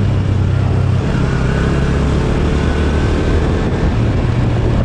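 Motorcycle engine running while riding, heard from on the bike under a steady rush of wind and road noise. The engine note drops about a second in and picks up again near the end.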